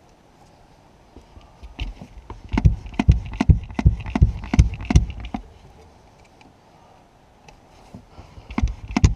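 A plastic squeeze bottle of Marvel Mystery Oil pumped by hand over and over, squirting and sputtering into the engine's cylinder holes, about two to three squeezes a second. One run of squeezes lasts a few seconds, and a second run starts near the end.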